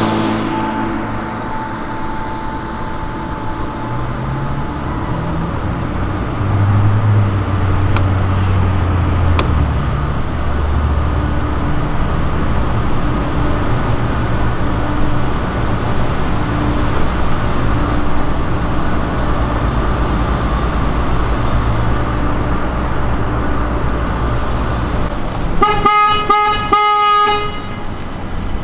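Low, steady engine rumble of a vehicle moving slowly, changing pitch a few times early on. Near the end a car horn sounds in a few short honks.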